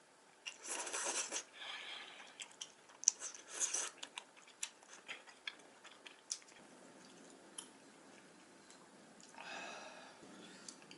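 A person chewing jajangmyeon noodles close to the microphone: irregular wet mouth noises and sharp clicks, busiest in the first few seconds, then quieter, with another burst of eating noise near the end.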